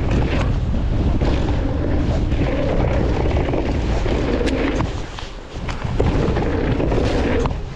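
Mountain bike rolling fast over a dirt trail, heard from a handlebar camera: wind buffeting the microphone over the rumble of knobby tyres on dirt, with rattles and knocks from the bike. The noise drops briefly about five seconds in and comes back with a thump, the bike in the air off a jump and landing.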